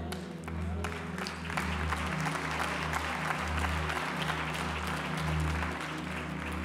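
Audience applauding, many hands clapping, dying away near the end, over soft background music with low sustained notes.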